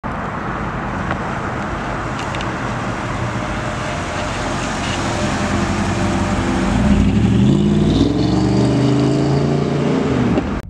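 The 350 cubic-inch LT1 V8 of a 1995 Pontiac Firebird Firehawk as the car drives past. Its engine note grows out of a rushing noise, rises in pitch as it accelerates by about seven seconds in, then falls as the car pulls away.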